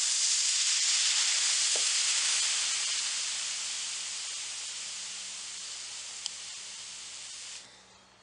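Hot clothes iron pressed onto a damp rag over dents in wood veneer, the water flashing to steam with a loud, even hiss that slowly fades and cuts off suddenly near the end as the iron is lifted. The steam is swelling the crushed wood fibres to raise the dents before sanding.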